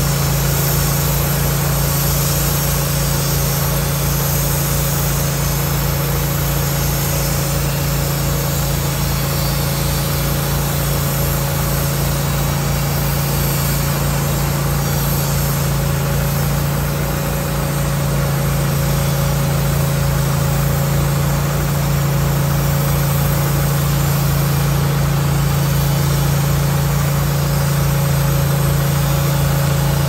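Wood-Mizer LT15 bandsaw mill's engine running steadily under load while its band blade cuts along a pine log.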